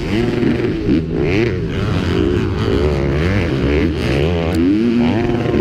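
KTM 250 SX-F four-stroke single-cylinder motocross engine revving hard, its pitch repeatedly climbing and dropping as the throttle is worked and gears change through a corner. The engine is close up from the rider's helmet camera, with wind and dirt noise underneath.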